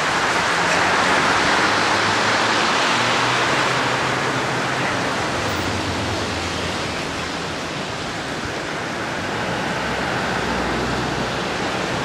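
Steady rushing of fast-flowing floodwater in the swollen Burnett River. A low engine hum sits underneath during the first half.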